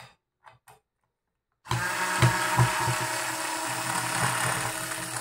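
A few light clicks, then, about a second and a half in, a 3.6 V cordless screwdriver starts and runs with a steady whine, with a couple of knocks shortly after it starts. It is running in reverse, backing a screw out of plywood.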